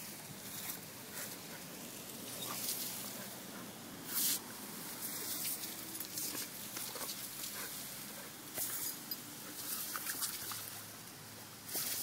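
Garden hose nozzle spraying water in a steady hiss and spatter while a dog bites at the stream, with a few louder splashes.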